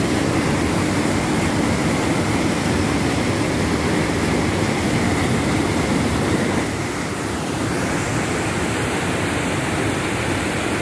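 Steady rushing of a rocky stream, white water pouring and splashing down between boulders. It dips slightly in level about two-thirds through.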